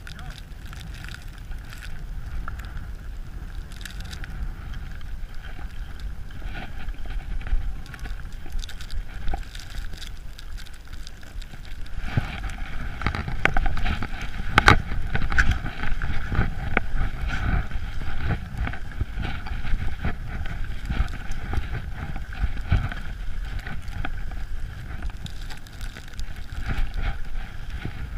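Wind buffeting the microphone while skiing downhill, with skis sliding and scraping on snow; it gets louder and harsher about halfway through as the pace picks up.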